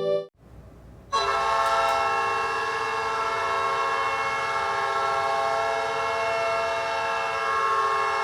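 NHL arena goal horn sounding one long, steady multi-tone chord, starting suddenly about a second in.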